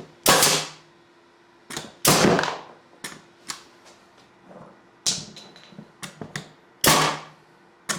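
Paslode nailer firing nails into a pine 2x4: three loud sharp shots, one near the start, one about two seconds in and one near the end, with lighter clicks and knocks between them.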